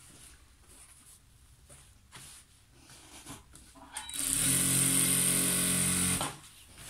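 Jack industrial sewing machine running steadily for about two seconds, stitching a folded hem in curtain fabric, then stopping abruptly. Light fabric rustling before it starts.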